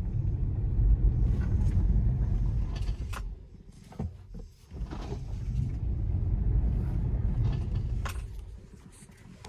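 Cabin sound of a 2020 Tesla Model 3 driving: low road rumble that swells and fades as the car speeds up and slows, with scattered sharp clicks and rattles from the car. The clicking is a fault noise that comes with acceleration, deceleration and turns, seemingly whenever the drive changes direction.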